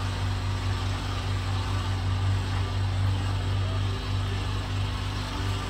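A steady engine-like hum running without a break.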